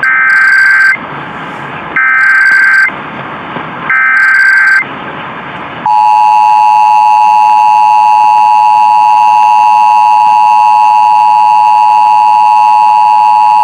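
Emergency Alert System tones over AM radio: three short warbling SAME header data bursts about two seconds apart, with radio hiss between them, then from about six seconds in the loud steady two-tone attention signal. Together they open an Illinois EAS Required Monthly Test.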